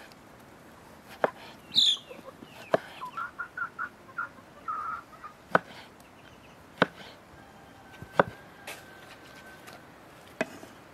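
Kitchen knife slicing through tomatoes and knocking on a wooden cutting board, about six sharp knocks a second or more apart. A hen clucks in short quick runs between the cuts.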